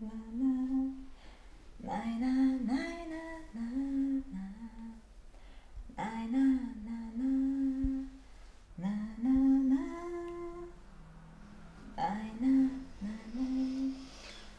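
A voice humming a slow, wordless melody in short phrases a few seconds apart, each scooping up into a held note.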